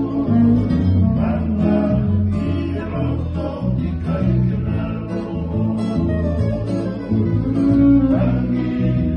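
Tongan string band playing acoustic guitars and other plucked string instruments in a steady strummed and picked accompaniment with a strong bass line, with men's voices singing along.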